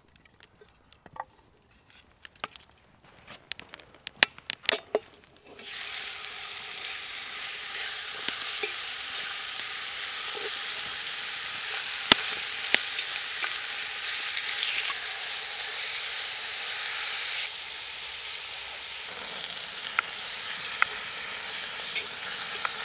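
Pork and beef pieces searing in hot oil in a cast-iron Dutch oven set on embers. A steady sizzle starts suddenly about five and a half seconds in, as the meat goes in, with occasional sharp clicks as it is turned with a fork. Before that there are only a few scattered light clicks and knocks.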